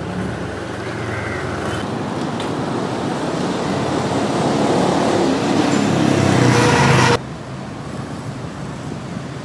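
Road vehicle noise growing steadily louder for about seven seconds, then cut off abruptly, leaving quieter background noise.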